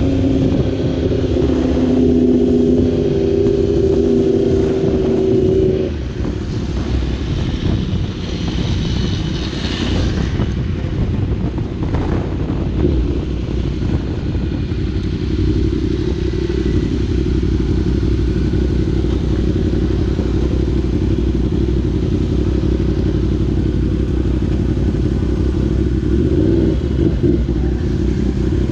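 Yamaha R1 60th Anniversary's crossplane inline-four through an Austin Racing exhaust, heard from the rider's seat: on the throttle for the first few seconds, then rolling off about six seconds in and running low and steady at slow speed in traffic.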